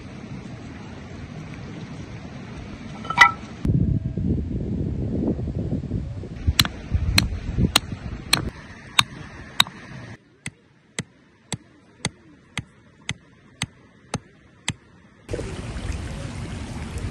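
Steady background noise, then a run of sharp, evenly spaced knocks or clinks, about two a second, partly over a quiet background.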